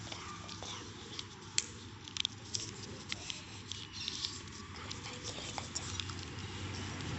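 A sheet of lined notebook paper being folded and creased by hand against a stone tile: soft rustling with scattered crisp crackles and light taps.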